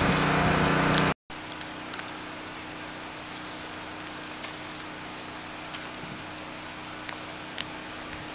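Steady rain falling, with scattered light ticks of drops. During the first second a louder steady engine hum runs, then cuts off abruptly.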